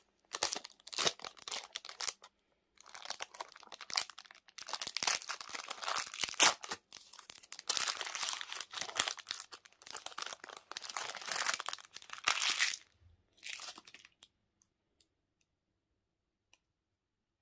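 Plastic candy and toy wrappers being crinkled and torn open by hand in irregular crackling bursts, which stop near the end.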